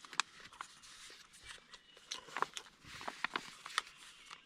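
A person chewing food close to the microphone, with scattered small crunches and clicks.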